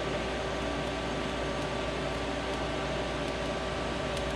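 TIG welding arc on thin stainless steel exhaust tubing, pulsed at 30 pulses per second, giving a steady hiss with a low hum under it.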